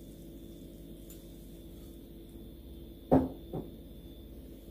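Glass water jug set down on a wooden tabletop: two short, dull knocks about half a second apart, a little past halfway, over a faint steady hum.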